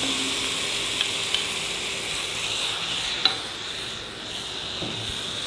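Marinated chicken pieces sizzling in a hot frying pan as a spatula scrapes them in from a glass bowl and stirs, with a steady frying hiss and a few sharp spatula taps, the loudest a little over three seconds in.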